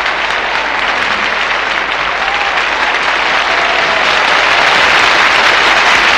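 Concert audience applauding, a dense steady clapping that swells a little and holds.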